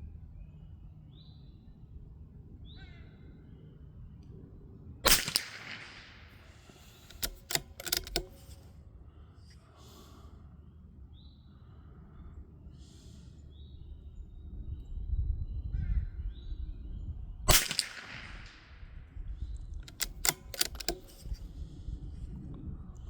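Two .22LR shots from a Ruger RPR rimfire rifle, about twelve seconds apart, each followed a couple of seconds later by a short run of clicks as the bolt is worked. Crows call faintly in the background.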